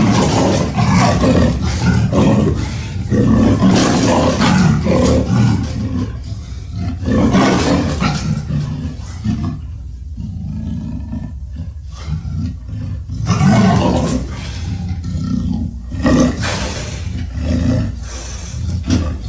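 King Caesar kaiju roar sound effect: a run of loud, long roars that starts abruptly out of silence, with a quieter stretch about ten seconds in before the roars build again.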